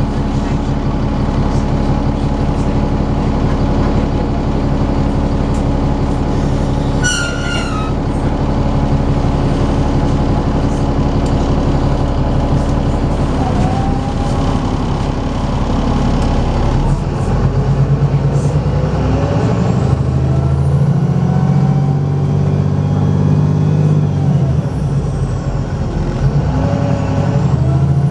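VDL SB200 single-deck bus's diesel engine running steadily at low revs, then pulling away and accelerating hard: the engine note rises and steps through gear changes, with a thin high whine that climbs with speed, drops, then climbs again. A brief high warbling chirp sounds about a quarter of the way in.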